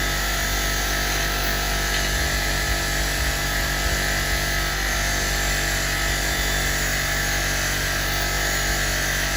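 Rotary wire brush on an electric motor running steadily while a rusty box spanner is cleaned on it, with an even, unchanging hum.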